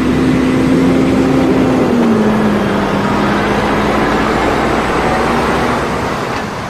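Heavy truck pulling a long drawbar trailer, its engine running steadily as it drives slowly through a bend; the engine note drops slightly about two seconds in.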